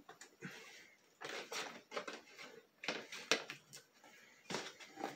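Cardboard toy packaging being handled: irregular rustling and scraping as a cardboard insert is worked out of an action-figure box, with a couple of sharp clicks about three seconds in.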